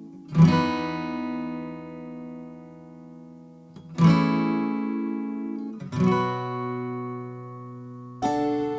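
Background music: acoustic guitar chords strummed slowly, each ringing out and fading, four strums in all.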